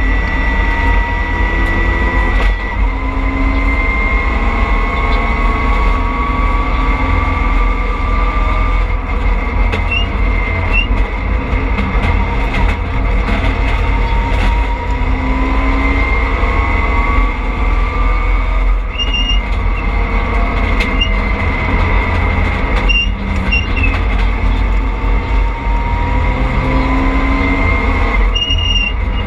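Rally car driven hard on a stage, heard from inside its stripped cabin: the engine note climbs in several long pulls, over a heavy low rumble of road and tyres.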